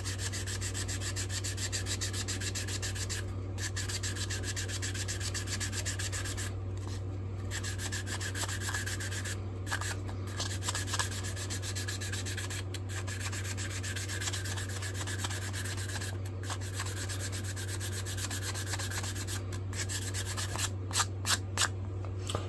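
A small wooden axe handle being hand-sanded with sandpaper, a steady run of quick back-and-forth rubbing strokes over a steady low hum. A few sharp knocks come near the end.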